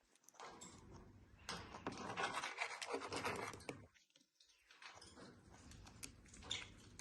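Dry scratching and rubbing noises in two spells, with a brief pause about four seconds in.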